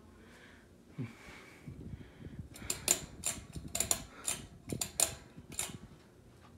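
A 44-inch Hampton Bay Hawkins ceiling fan running with a faint steady hum. About two and a half seconds in there is a quick run of about a dozen irregular sharp clicks and taps, lasting about three seconds.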